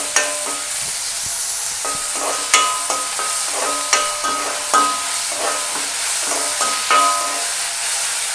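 Chopped onion sizzling in hot oil in a pan while being stirred, with a steady hiss. The spoon knocks and scrapes against the pan several times, each knock giving a short ringing clank.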